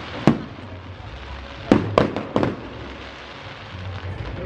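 Aerial firework shells bursting: one sharp bang just after the start, then a quick run of about four bangs near the middle, each with a short echoing tail.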